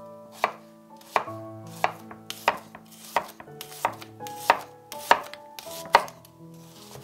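Chef's knife slicing an onion on an olive-wood cutting board: about nine crisp chops, roughly one every two-thirds of a second, each one the blade cutting through and knocking the board.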